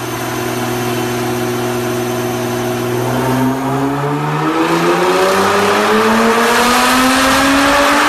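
Nissan GT-R R35 Nismo's twin-turbo V6 through an Armytrix valvetronic exhaust, holding a steady note for about three seconds, then rising steadily in pitch and getting louder as the revs climb under acceleration.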